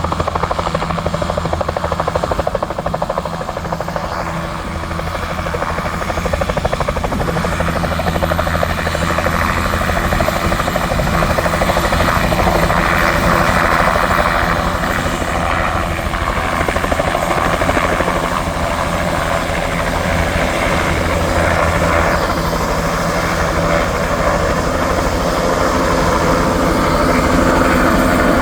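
Helicopter running, its rotor and turbine engine giving a loud, steady sound.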